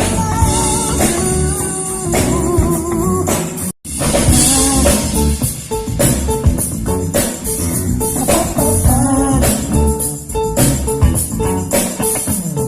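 Music with a singing voice over guitar and drums with a steady beat; it cuts out for a moment about four seconds in, then carries on.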